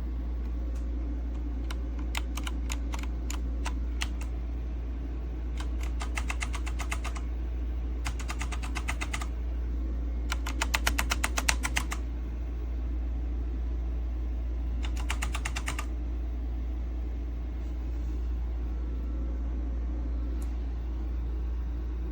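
Typing on a mechanical keyboard: about five short bursts of rapid key clicks, over a steady low hum.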